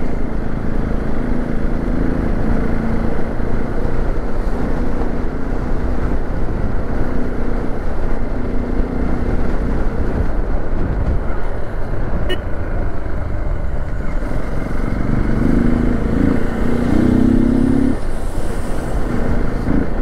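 Hero XPulse 200 4V motorcycle's single-cylinder engine running steadily as the bike is ridden, its note stronger for a couple of seconds near the end.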